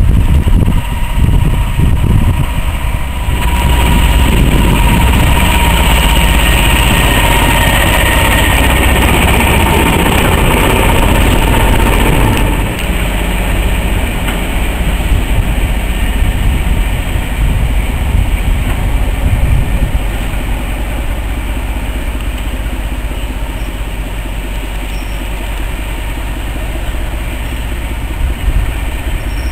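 Diesel locomotive running as it hauls coaches into the station, the engine loud with a steady whine until about twelve seconds in, then dropping back to a quieter idle.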